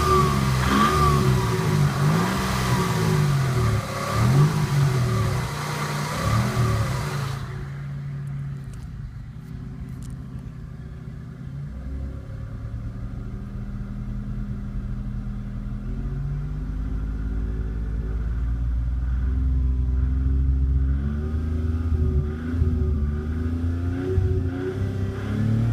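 1991 Toyota Camry engine revved up and down in quick blips. About seven seconds in it turns suddenly muffled and dull, and the revs rise and fall more slowly. The engine has a knock under load that the owner traces to the bottom end of cylinder #2 and takes for rod bearing noise.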